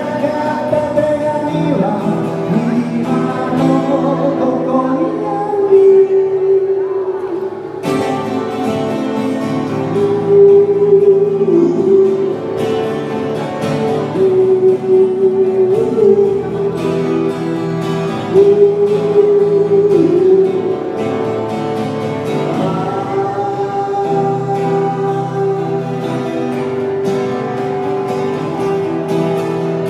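Music: a song, with a sung melody line held in long notes over instrumental accompaniment.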